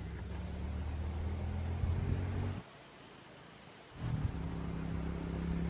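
A low, steady, motor-like hum that stops for about a second and a half in the middle and then starts again.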